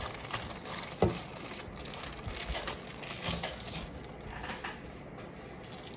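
Product packaging being handled and set aside, crinkling and rustling, with a light knock about a second in.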